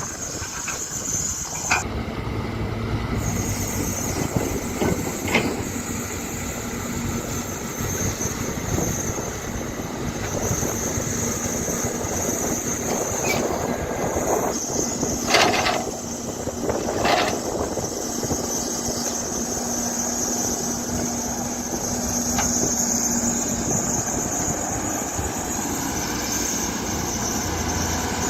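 Excavator at work: its engine runs steadily under a constant high-pitched squeal, with a few knocks along the way, the loudest about fifteen seconds in.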